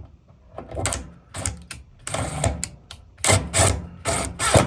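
Screw being driven back into the thermal fuse mount of a dryer: about five short, irregular bursts of scraping and clicking tool noise.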